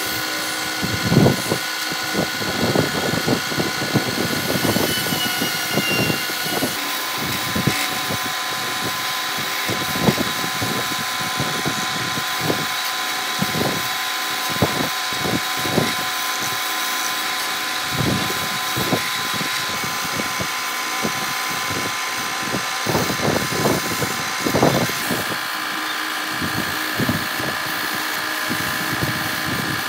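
Small wood lathe running with a steady motor tone while a hand chisel cuts a spinning wooden spindle, giving irregular scraping strokes. The tone shifts slightly at a couple of points.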